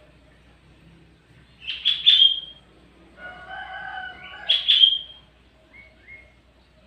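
Sooty-headed bulbul (kutilang) singing: two loud bursts of bright, quickly sweeping notes about three seconds apart, with a longer held note between them and a few faint chirps near the end.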